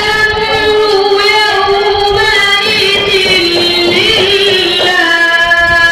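A boy's voice reciting the Quran in melodic tilawat style, drawing out one long held note with small ornamental turns. The pitch dips and climbs back about midway, and a new held phrase begins near the end.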